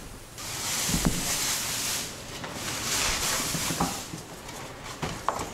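Dry straw-like strands rustled by hand in and out of a cardboard box, making a continuous hissing rustle with a few light knocks, the loudest about a second in. It is a live sound effect for the eerie ghostly noise in the story.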